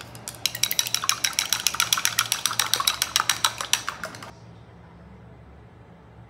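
Chopsticks beating egg white in a small glass bowl: a rapid, steady run of light glassy clinks, about eight to ten a second, that stops after about four seconds.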